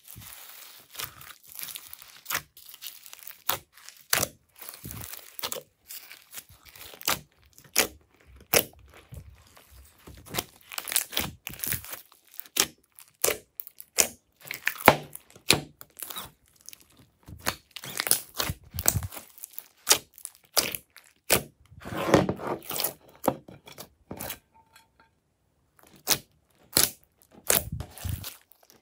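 Glossy slime mixed with foam beads and glitter being kneaded, folded and stretched by hand, giving an irregular run of sticky pops, crackles and crunches as air pockets burst and the beads are crushed.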